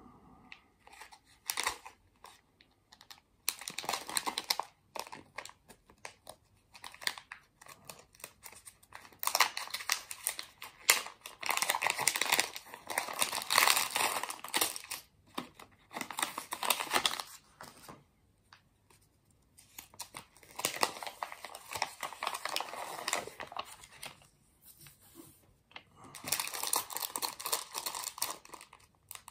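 Clear plastic bag of Daiso Petit Block mini bricks crinkling and rustling as it is handled and torn open, in irregular bursts with short pauses.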